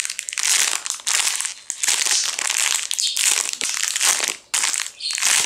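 Clear plastic packaging crinkling in a run of short bursts with brief pauses, as hands squeeze and handle a foam pancake squishy sealed inside it.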